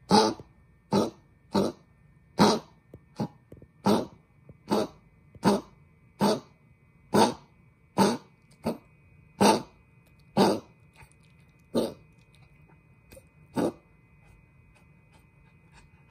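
Maltese dog coughing hard in a long run of short, sharp coughs about one a second, spacing out and stopping near the end. The uploader puts the coughing down to laryngeal stenosis, set off by changes in temperature.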